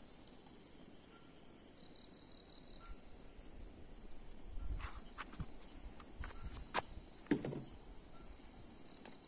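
Night insect chorus: crickets trilling steadily at several high pitches, with a few faint clicks and rustles just past the middle.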